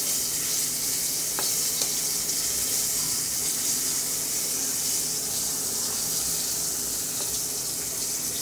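Fish frying in oil in a pot on the stove: a steady sizzle. Two faint clicks come about a second and a half in.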